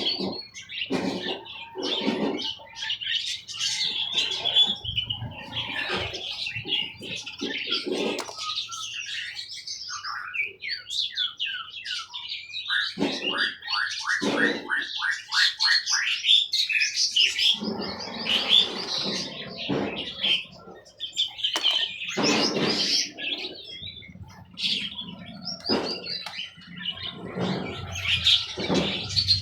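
Many caged songbirds chirping and singing at once, their calls and trills overlapping, with a run of quick repeated falling notes about halfway through.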